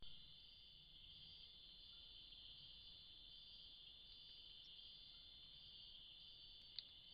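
Faint, steady, high-pitched chorus of night insects such as crickets, a continuous shrill band with no pauses. A single brief click sounds near the end.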